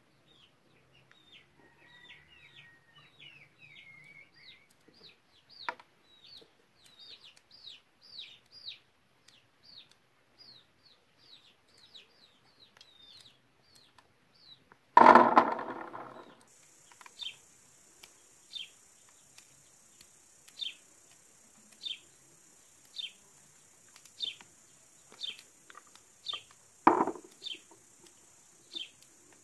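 Outdoor village ambience: a small bird chirps over and over in short falling notes throughout. A rooster crows once, loudly, about halfway through. From then on a steady high insect buzz runs under the chirps, and one more short loud call comes near the end.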